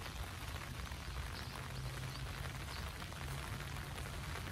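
Steady rain falling on grass and trees, an even hiss, with a low steady hum underneath.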